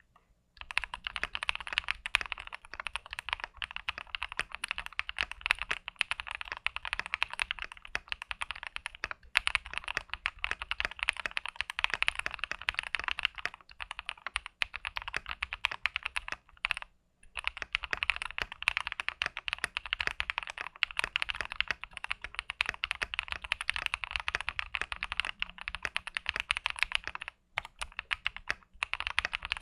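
Continuous fast typing on a Keychron Q6 full-size aluminium mechanical keyboard with Feker Matcha switches, modded with PE foam, two layers of tape and the force-break mod, with lubed stabilizers. The keystrokes come in a dense stream, stopping briefly three times: about a third of the way in, just past halfway and near the end.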